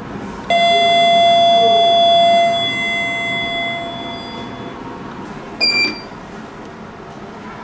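Lift's electronic signal tone: one long steady note that starts suddenly, holds about two seconds and then fades away, followed a few seconds later by a short higher beep.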